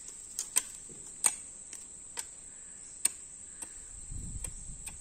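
Steady high-pitched cricket chirring, with sharp clicks at irregular intervals and a brief low rumble about four seconds in.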